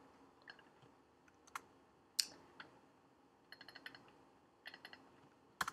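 Faint computer keyboard and mouse clicks: scattered single clicks, two short runs of quick taps about three and a half and four and a half seconds in, and a sharper click near the end.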